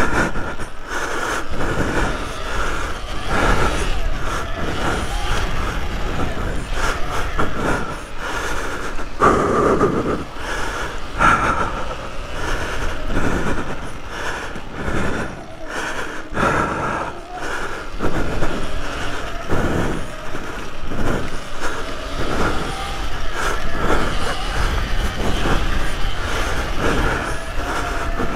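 Electric off-road motorbike being ridden over the bumps of a dirt track: a steady motor whine with many knocks and rattles as the bike hits the ground.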